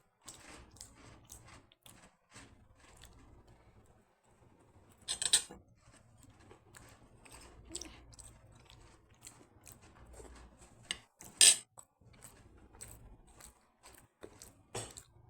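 Cutlery clinking and scraping on a plate during eating, many small clicks with two louder sharp clinks, about five seconds in and again about eleven and a half seconds in.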